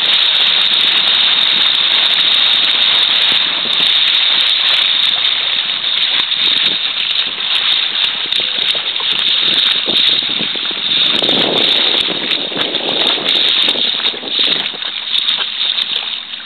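Steady rushing noise of wind and moving water from a small boat under way on open water, growing more uneven, with splashy surges, after the first few seconds.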